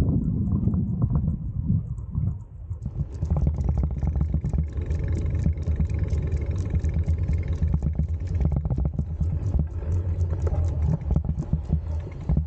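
Low steady rumble of a mountain bike's knobby tyres rolling over asphalt, with a quick run of light ticks, about five or six a second, from about three seconds in.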